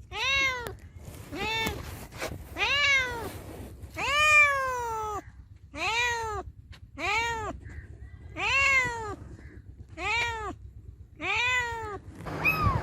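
A cat meowing repeatedly: about ten meows, a bit over a second apart, each rising and then falling in pitch, one of them longer than the rest. Near the end, higher-pitched meows begin.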